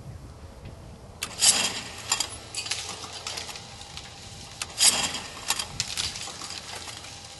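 Promatic Huntsman clay trap throwing twice, about three and a half seconds apart: each throw is a sharp snap and rush of the throwing arm, followed by a run of light metallic clicking.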